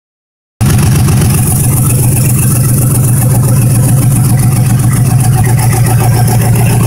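5.3-litre GM V8, newly swapped into a 1965 Chevrolet Impala, running steadily without revving.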